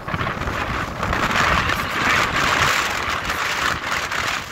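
Heavy storm surf breaking and washing up the beach, whipped up by a tropical storm, with strong wind buffeting the microphone. The hiss of the surf swells about a second in.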